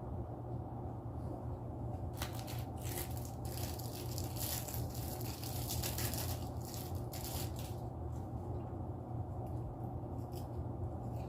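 Eating a Little Debbie snack cake: a run of short crinkling, crunching noises from about two seconds in until about eight seconds in, over a steady low hum.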